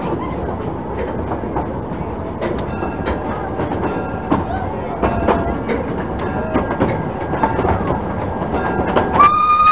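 Narrow-gauge train coaches rolling along behind an 1890 Krauss 0-6-2T steam tank engine: a steady rumble with wheel and rail-joint clicks. Near the end the locomotive's steam whistle sounds, one loud steady note.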